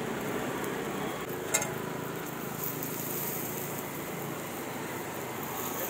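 Steady sizzle of bread and a cheesy egg mixture cooking on a hot flat griddle, with one sharp click about one and a half seconds in.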